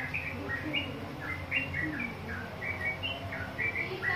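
Yellow-vented bulbul (trucukan) song: short, chirped notes in quick, irregular phrases, over a low steady hum.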